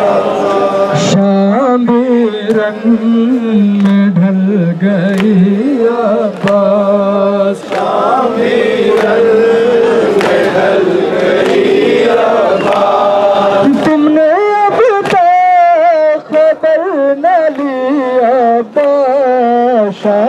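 Urdu noha sung by a man through a microphone, a slow lament with wavering, held notes, with chest-beating (matam) striking about once a second.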